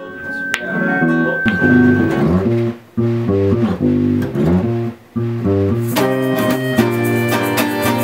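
Band music: a plucked guitar riff of low, stepping notes, with brief pauses between phrases. A fuller band comes in about six seconds in.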